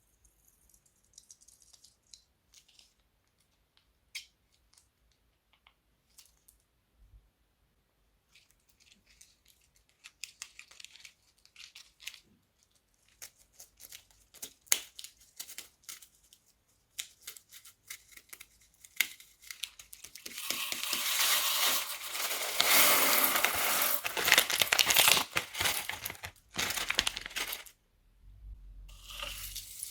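Plastic piping bags crinkling and crackling. It starts as scattered soft crackles, grows denser, and becomes loud, continuous crinkling for about six seconds past the halfway point, then stops briefly before starting again.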